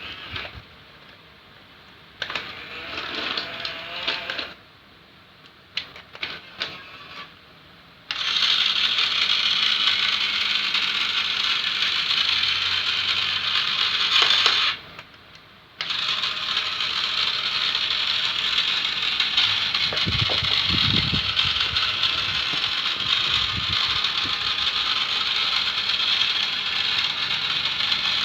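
Motors and gearing of a radio-controlled model excavator whirring in short stop-start bursts, then running steadily from about eight seconds in, with one brief stop about halfway through.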